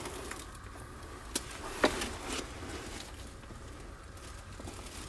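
A few sharp knocks and clicks over a low steady hum, the loudest about a second and a half and two seconds in.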